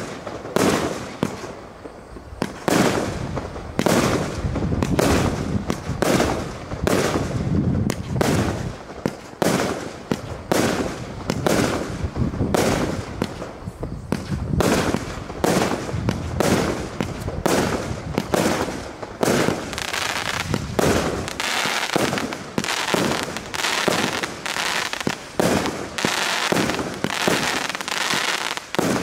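Cosmic Fireworks Ground Shaker, a 254-shot compound cake, firing its barrage: a rapid string of launch thumps and aerial bursts, about one or two a second. Over the last third the shots lose some of their low thump and run together into a denser hiss.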